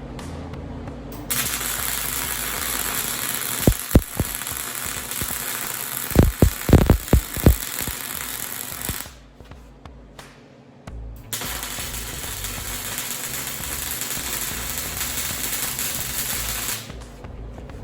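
Welding arc frying steadily in two runs of several seconds each, with a short break between them. A few sharp low thumps come during the first run.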